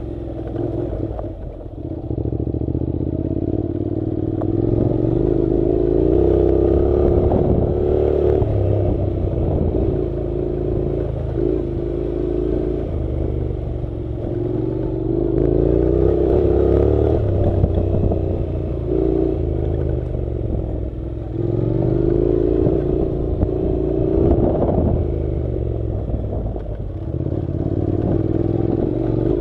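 Honda NC700's parallel-twin engine running at changing throttle on a dirt track, its pitch rising and falling every few seconds, over a steady clatter and rattle from the rough surface.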